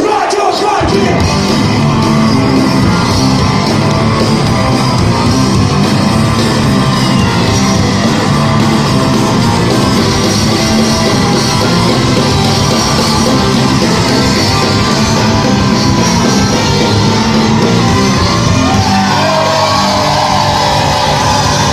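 Rock band playing live: a loud, steady, dense instrumental stretch of the song, with drums, bass and electric guitars and a gliding lead line near the end.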